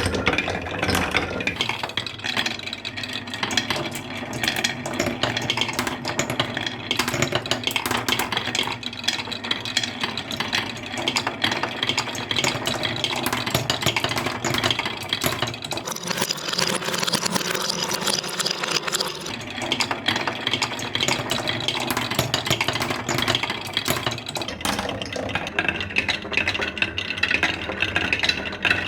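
Marbles rolling and clacking down a wooden HABA marble run: a dense, continuous rattle of small clicks and knocks against the wooden track pieces.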